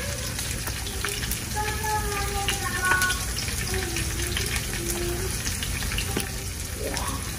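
Food frying in a pan: a steady sizzle with scattered small crackles.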